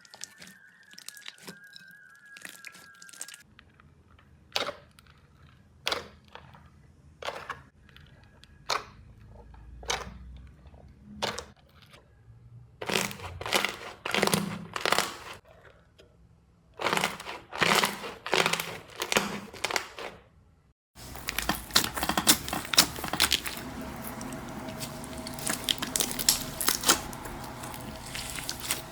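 Slime being pressed and squeezed by hand, giving crunchy crackles and pops: single presses about a second apart, then quicker clusters, and after a brief break a dense, continuous crackle.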